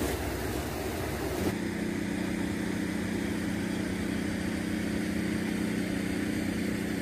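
A steady mechanical hum begins about a second and a half in, after a stretch of outdoor background noise, and holds an unchanging low drone.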